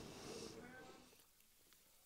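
Near silence, with a faint voice trailing off in the first second.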